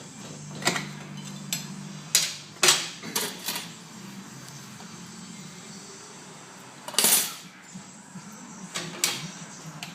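Sharp metallic clinks and knocks of tools and parts being handled on a motorcycle's chain and swing arm: a cluster in the first few seconds, then a louder knock about seven seconds in and two more near the end.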